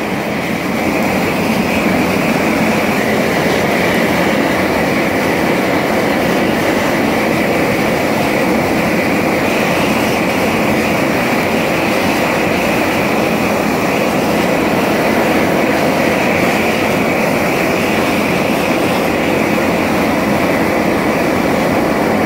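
High-intensity torch burning steadily against a composite block, a loud, even rush of flame that never changes.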